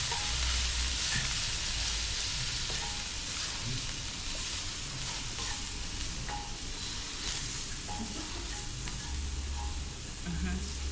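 Chicken breast pieces sizzling steadily as they fry in oil in a hot pan, with a few light scrapes and taps of a utensil stirring them.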